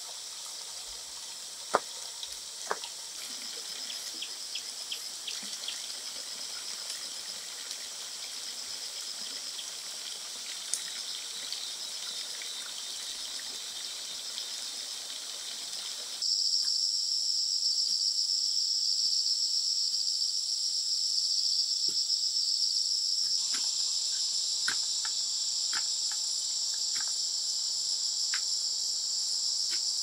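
Steady high-pitched chorus of insects, with a few sharp clicks in the first seconds. The chorus becomes clearly louder about halfway through.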